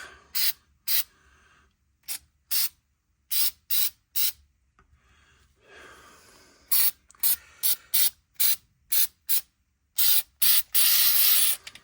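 Aerosol spray can squirted in many short bursts, then held for one longer spray of about a second near the end.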